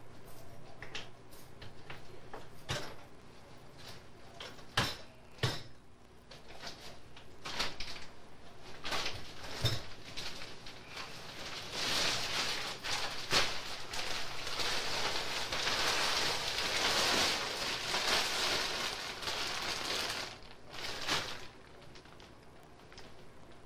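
Scattered sharp clicks and knocks, then, about halfway through, a rough hiss that lasts several seconds before fading.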